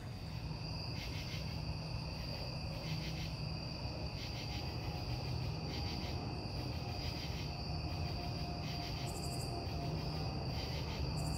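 Crickets and other insects calling: a steady high trill with rhythmic pulsing calls layered over it, a few brief higher chirps near the end, and a low steady hum underneath.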